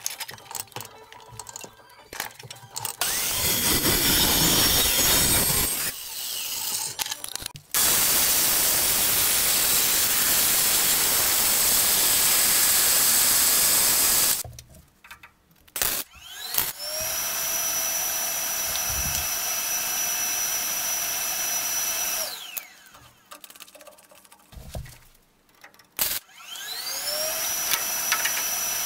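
Evolution metal-cutting chop saw slicing through steel exhaust tubing in two cuts, the second about six seconds long. After a pause, a power tool spins up to a steady whine, runs for about five seconds and winds down, then spins up again near the end. Light clanks of the vise and tubing come before the first cut.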